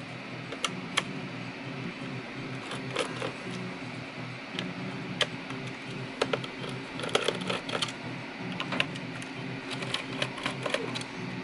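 Small precision screwdriver backing screws out of an Alienware 17 R4 laptop's underside: scattered light clicks and ticks of the bit and screws, with a steady low hum of the room behind.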